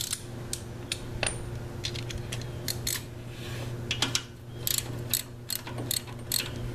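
Socket ratchet wrench clicking in short irregular runs as it is swung back and forth, tightening the crankcase oil drain plug on a Harley-Davidson Street Glide Special.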